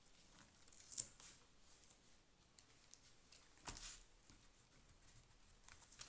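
Faint rustling and scraping of hands and a pen on the paper of a notebook, with two soft knocks about a second and nearly four seconds in.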